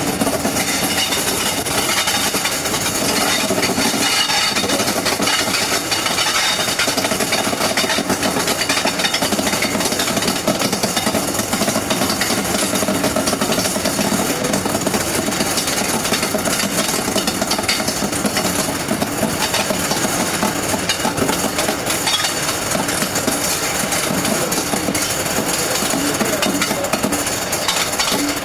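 Diesel-hauled passenger train running, a loud steady rumble with fast rattling from the wheels and rolling stock.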